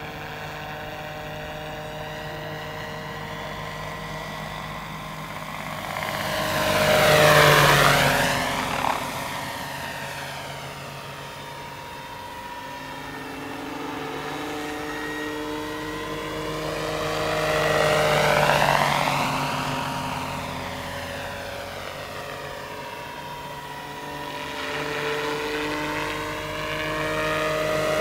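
Radio-controlled scale Eurocopter AS350 B3 Ecureuil helicopter in flight, its rotors and drivetrain giving a steady multi-tone whine. It grows loud as it passes close, about seven seconds in and again around eighteen seconds, and swells once more near the end.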